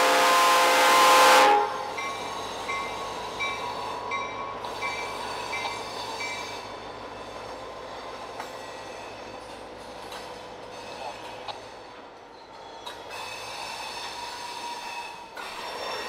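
Freight train horn sounding a loud chord that cuts off about a second and a half in, followed by the quieter running noise of a train of rail cars. A bell strikes about every 0.7 s for several seconds after the horn stops.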